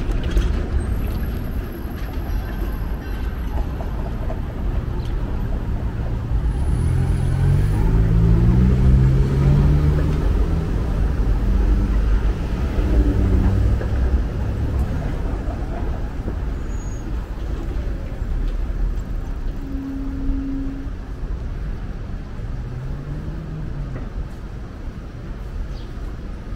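Downtown street traffic: a steady rumble of passing vehicles. Roughly a third of the way in, a heavy vehicle's engine rises in pitch in steps as it pulls away.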